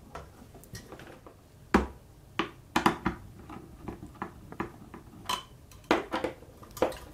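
Screwdriver working the metal mounting screws of a CPU tower cooler's bracket: irregular small metallic clicks and taps as the screws are tightened down in turn, diagonal to diagonal, to even out the mounting pressure.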